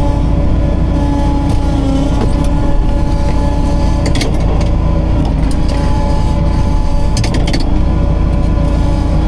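Heavy farm machinery running steadily during corn silage chopping, a low engine rumble with a steady whine over it, and a few brief rattles about four and seven seconds in.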